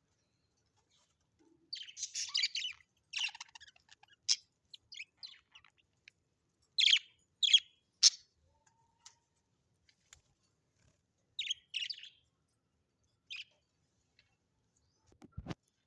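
Parrots chirping in short, scattered bursts of high calls with pauses between them, and a brief low thump near the end.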